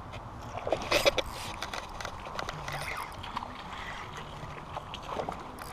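A splash about a second in as a bass strikes a small topwater walking bait, followed by scattered faint clicks as the hooked fish is fought on a spinning rod.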